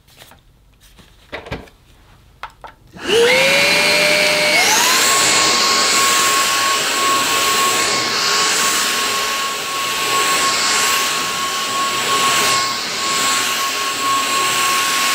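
Numatic Quick NQ100 cordless stick vacuum starting about three seconds in with a rising whine. Its pitch steps up a second or so later as it goes to the boost setting, then it runs steady, pushed over thick carpet with the floor head's suction control open.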